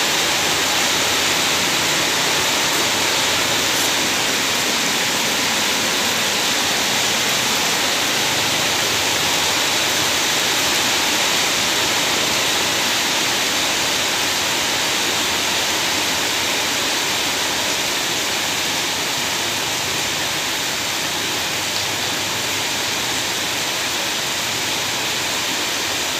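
Rain falling steadily: an even, unbroken rushing.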